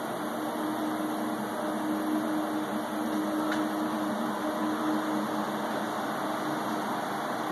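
Steady whir of fans and moving air in a telephone equipment room, with a low steady drone underneath.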